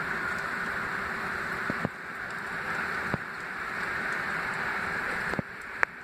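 Steady outdoor hiss during a wet snowfall, broken by a few short knocks about two, three and five and a half seconds in.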